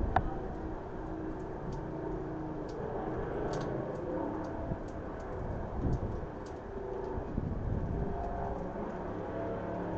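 Storm wind blowing with a steady low rumble that swells slightly now and then. A single sharp click comes right at the start, and faint ticks are scattered through it.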